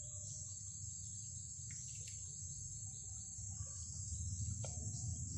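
Steady, unbroken high-pitched trill of insects, with a low hum underneath and a faint tick or two.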